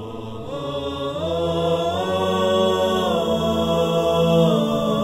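Intro music of held, choir-like chanted chords. The chord steps up in pitch about a second in and again near two seconds, then falls back after three seconds and again near the end.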